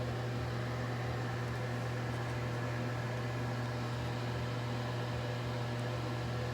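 Steady low electrical hum near 120 Hz with a buzz of overtones above it, from mains-powered equipment running.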